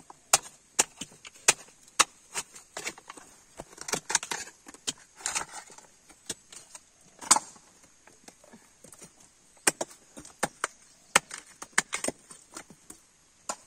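A knife blade knocking and scraping against dried coconut shell as the copra meat is pried out, in a run of sharp clicks about one to two a second, with a denser patch of scraping near the middle.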